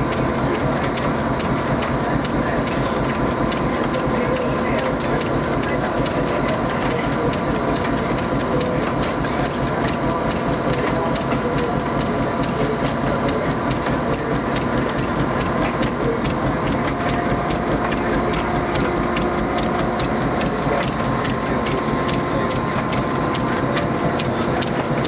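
A 100-plus-year-old cotton gin running empty, its belts, pulleys and shafts spinning with a steady rapid clatter over a constant hum.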